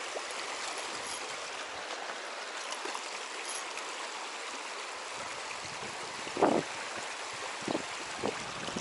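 Shallow river riffle, water rushing steadily over stones. A short thump about two-thirds of the way through is the loudest sound, with a few lighter knocks after it.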